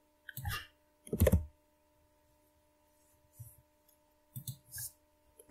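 A few separate computer mouse and keyboard clicks as text is copied and pasted, the loudest about a second in and softer ones near the end, over a faint steady electrical hum.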